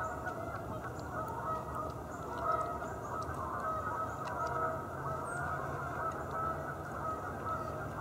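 A flock of Canada geese honking continuously, many overlapping calls at once.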